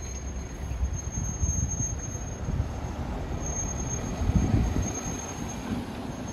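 Cars driving past close by, their low rumble swelling about four seconds in, while a historic tram runs up its street track behind them. A thin, steady high-pitched squeal sounds throughout, fitting tram wheels squealing on the rails.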